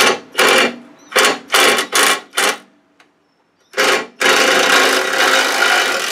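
Cordless impact driver running a bolt in: about seven short trigger bursts, then one longer steady run from a little past four seconds in.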